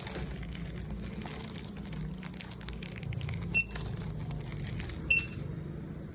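Checkout barcode scanner beeping twice, short high beeps about a second and a half apart, over the clatter and rustle of goods and a low hum from the shop.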